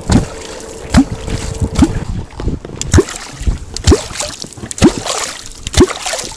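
A catfish kwok striking the water about once a second, each stroke a deep, hollow gulping pop with a quick pitch glide and a splash. This is the rhythmic 'kwokking' used to draw a catfish up from the bottom.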